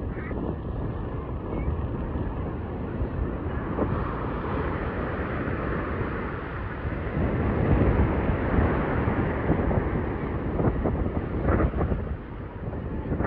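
Ocean surf washing in and breaking, with wind buffeting the microphone. The rush of water swells louder a couple of times.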